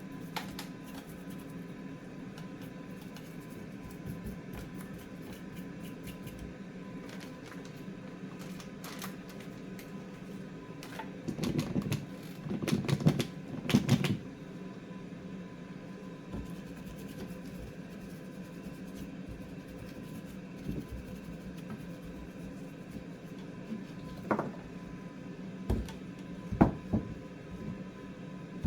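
Small clicks and scrapes of hands and tools working on a graphics card's circuit board at a repair bench while it is cleaned up after soldering, loudest in a cluster about halfway through, with a few sharp clicks near the end. A steady electrical hum runs underneath.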